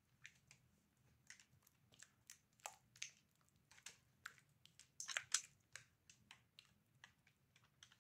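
Faint, irregular scraping and clicking of a silicone spatula against a glass mixing bowl as thick batter is scraped out onto parchment paper, with a brief cluster of louder scrapes about five seconds in.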